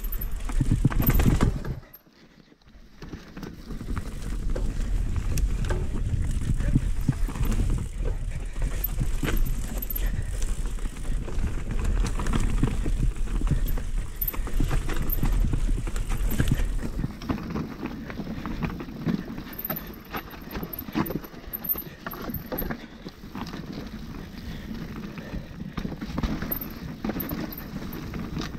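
Hardtail mountain bike clattering over a rough trail: a constant stream of small knocks and rattles over a low rumble. The rumble eases off a little past the halfway mark.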